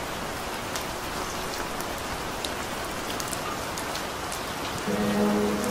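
Steady rain, with single close drops ticking out of the patter. Soft sustained music notes come in near the end.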